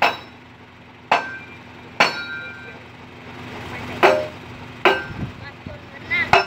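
Sharp metal-on-metal clanks, six strikes at uneven intervals, each with a brief ring, over the steady hum of an idling truck diesel engine.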